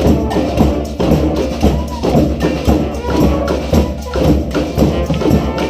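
Brass street band playing a cumbia: horn lines over a steady percussion beat of about two strokes a second.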